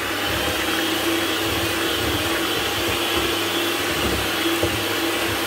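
Electric hand mixer running at a steady speed, its beaters churning through cake batter with flour just mixed in.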